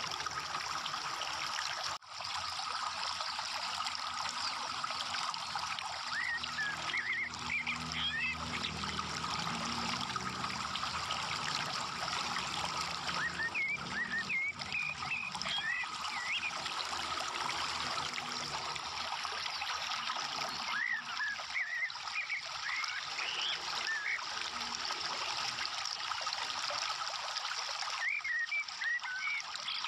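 Steady trickling, running water like a stream, with four short bursts of high chirps spaced about seven seconds apart.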